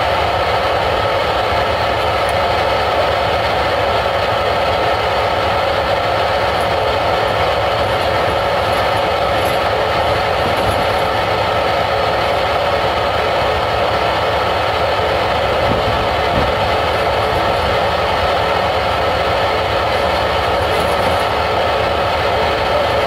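Steady, loud machinery running, a constant drone with several unchanging tones and no breaks or changes.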